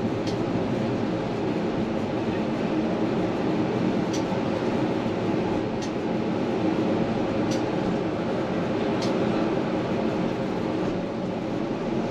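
Tram running along its track, heard from on board: a steady rumble of wheels on rail with a faint even hum, and a few faint ticks.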